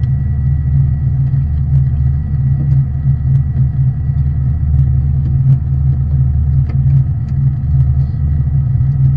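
Fishing boat's engine running steadily, a low even rumble, with a thin steady high tone above it and a few faint ticks.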